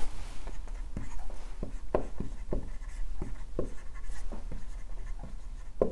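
Dry-erase marker writing on a whiteboard: a run of short, irregular marker strokes, a few a second, with a sharper click near the end.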